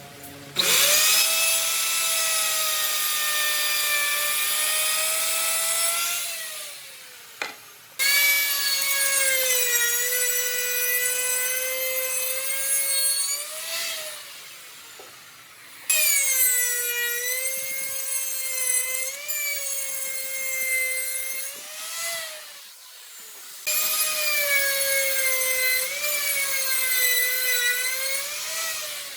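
Power woodworking tool cutting wood in four passes of about six seconds each. Its motor whine drops in pitch as each cut loads it and rises again as the cut ends, then falls back to a faint idle between cuts.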